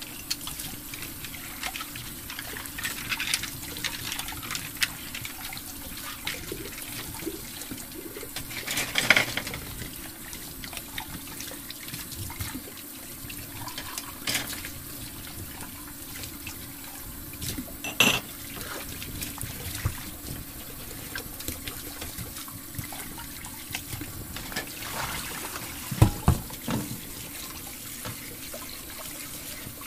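Small plastic toy kitchen pieces clicking and knocking as they are set in place, a few separate knocks over a steady hiss.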